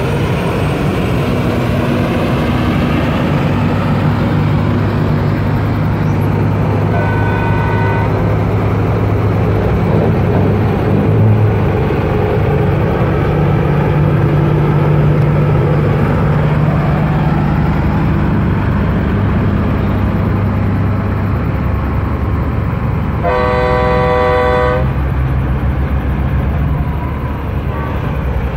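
Lit-up semi-trucks rolling past with their diesel engines running in a steady low drone. An air horn gives a short toot about a quarter of the way in, and a louder horn blast of about a second and a half comes later on.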